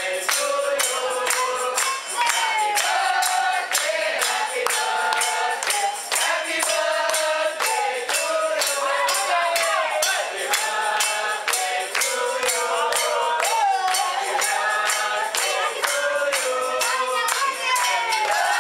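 Music: several voices singing together over a quick, steady tambourine beat.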